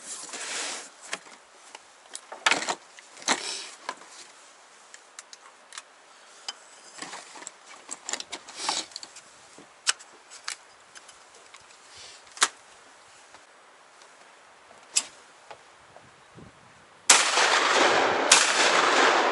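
Gunshots at clay targets: about eight short, sharp cracks at irregular intervals. Near the end a sudden loud, steady rush of noise starts and drowns them out.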